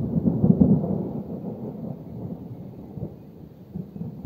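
Thunder rumbling, loudest at the start and dying away over a few seconds.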